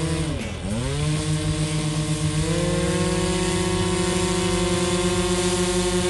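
Engines of a Seagull Models Dual Ace twin-engine RC plane running during a ground run-up check. The pitch drops sharply toward idle just under a second in, climbs back, then steps up to a higher steady setting about two and a half seconds in.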